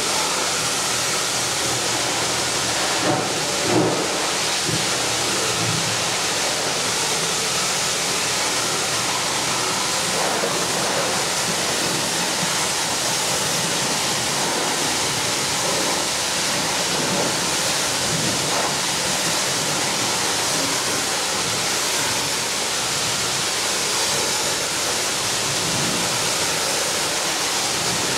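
Several high-pressure washer wands spraying water against a John Deere 9670 STS combine's body and tyres: a steady loud hiss of spray, with two brief louder spurts about three and four seconds in.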